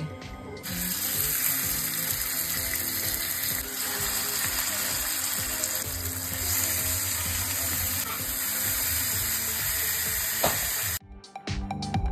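Seasoned chicken cutlets sizzling in hot fat in a ceramic-coated skillet. The sizzle starts suddenly a moment in and cuts off near the end, with background music underneath.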